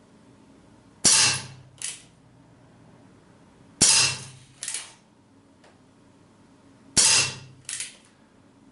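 Three shots from an Umarex Colt Single Action Army CO2 revolver firing 4.5 mm steel BBs, about three seconds apart. Each is a sharp crack, followed less than a second later by a shorter, fainter burst.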